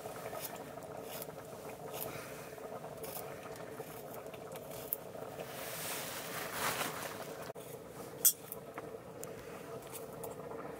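Potato slices cut with a small curved knife and dropping into an aluminium plate: a few sharp, scattered clicks over a faint steady hum.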